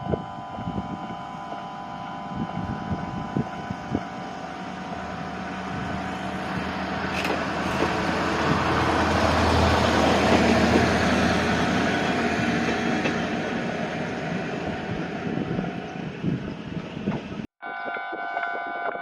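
Level-crossing alarm ringing its steady repeating 'kan-kan' tones while a Kominato Railway diesel railcar passes. The train's rumble grows to its loudest about halfway through and then fades. Near the end the sound cuts suddenly to a different crossing alarm with a higher set of tones.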